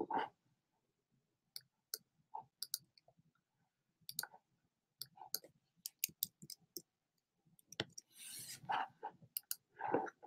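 Computer keyboard keys and mouse buttons clicking in an irregular series of light clicks, with a short hiss about eight seconds in and a louder knock near the end.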